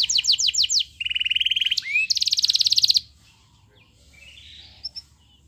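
Domestic canary singing: a run of rapid trills and quick falling sweeps that stops abruptly about three seconds in, followed by a fainter rising trill and two short high notes near the end.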